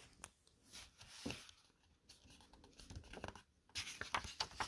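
Faint rustling and crinkling of a picture book's glossy paper pages as a hand grips and turns a page, a scatter of soft rubs that grows louder near the end.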